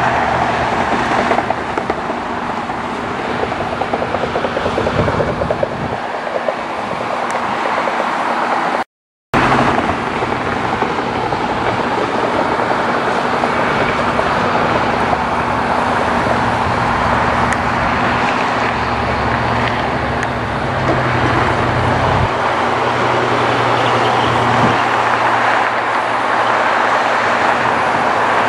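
Jet airliner engines running, a loud steady rushing noise with a low hum underneath. The sound cuts out for an instant about nine seconds in, then resumes much the same.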